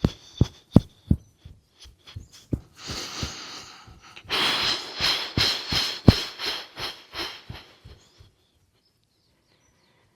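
Heels dropping in a rhythmic thump, about three a second, during qigong shaking. Two long breathy, hissing exhalations of the Taoist healing sounds are voiced over the thumps. The thumping stops a little after two-thirds of the way through.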